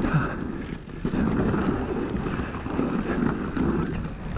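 Wind buffeting the microphone over the rumble of an electric mountain bike riding down a rough downhill trail, with a few sharp clicks and rattles.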